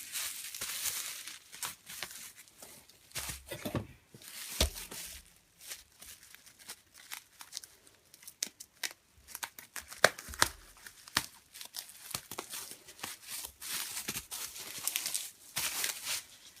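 Mail packaging being torn and crinkled open by hand, with many sharp clicks and taps as the package of plastic CD cases is handled.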